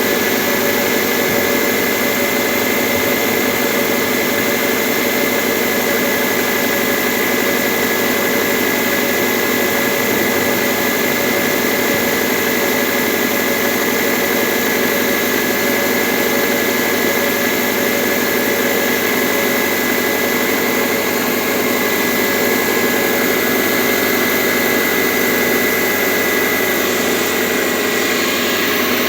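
1999 Subaru Legacy Outback's 2.5-litre flat-four idling steadily with a rapid, even knocking and tapping, which the owner takes for piston slap: loudest when the engine is cold, quieting as it warms.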